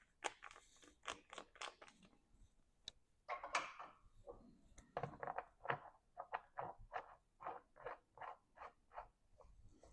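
Faint clicks and scrapes of a Beeman BP.50 launcher being handled during reassembly, with a run of light, evenly spaced ticks, about three a second, in the second half.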